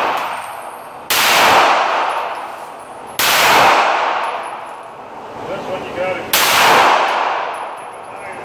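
Three pistol shots about two and three seconds apart, each a sharp crack with a long echoing decay in an indoor range lane.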